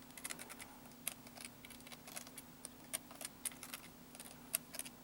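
Small Phillips screwdriver turning the screws of a laptop CPU heatsink: a string of faint, irregular light clicks and ticks of metal on metal, over a steady low hum.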